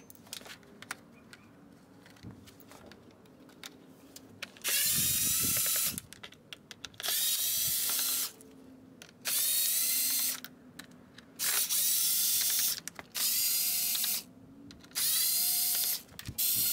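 Cordless driver backing T20 Torx screws out of a plastic grille, in about six short runs of roughly a second each, the motor whine rising at the start of each run. The first few seconds hold only faint clicks of handwork.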